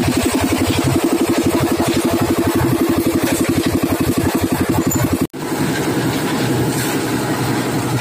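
Engine of a portable drum concrete mixer running steadily with a rapid, even pulse while mixing concrete, broken by a split-second dropout a little past five seconds in.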